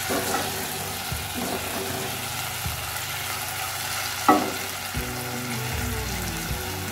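Chopped ripe jackfruit sizzling as it fries in ghee, stirred around a nonstick pan with a wooden spatula. There is one brief louder sound about four seconds in.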